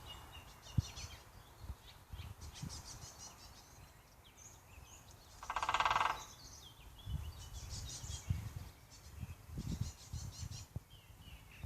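Middle spotted woodpecker hammering on a dead oak branch: scattered dull, irregular knocks. About halfway through there is a short, loud, rapid rattle, and other small birds chirp and trill in the background.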